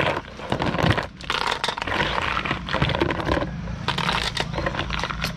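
Live rice-field snails clicking and scraping against one another and the aluminium pot as a hand stirs through them: many quick, irregular shell clicks.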